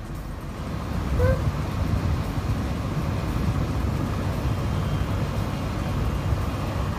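Steady low rumbling background noise that grows a little louder about a second in and then holds, with one brief faint pitched squeak near the start.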